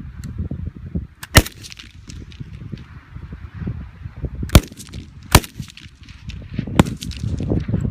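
Four loud gunshots at irregular intervals, about a second in, then near the middle twice in quick succession, and once more near the end, over a low rumbling background.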